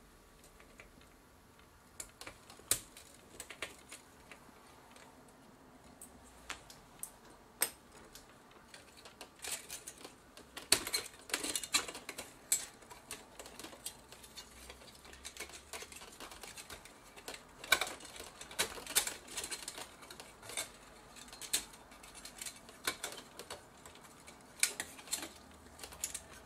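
Irregular sharp clicks and taps of small metal parts being handled while a Sony PMW-EX1 camcorder is dismantled: screws, a screwdriver and a metal bracket knocking against the chassis. The clicks start about two seconds in and come thickest through the middle.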